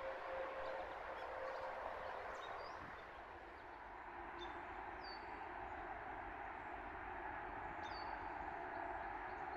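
Steady rush of flowing river water, with a bird giving a few short, high chirps that drop in pitch, spaced a few seconds apart.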